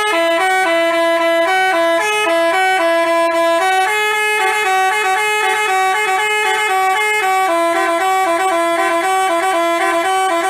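Basuri telolet horn playing a fast tune of quick stepping notes, loud and continuous.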